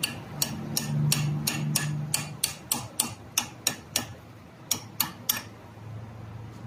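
Hammer tapping on metal in a quick, even rhythm of about four sharp strikes a second, with a brief pause near four seconds in, stopping a little after five seconds in.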